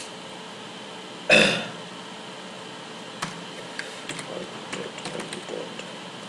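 Keystrokes on a computer keyboard, a run of light clicks through the second half. About a second in comes a single short, loud vocal sound, the loudest thing here.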